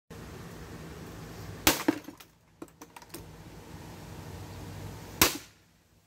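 Two sharp cracks about three and a half seconds apart as the plastic space heater is struck and its housing breaks, with a few small clattering clicks of pieces just after the first crack.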